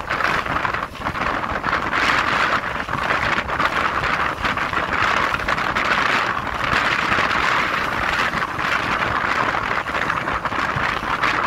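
Wind rushing over the microphone of a camera on a moving motorcycle, swelling and easing in gusts, with road noise underneath.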